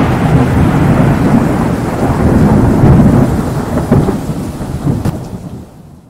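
Thunderstorm sound effect: loud rumbling thunder with a rain-like hiss, fading out near the end.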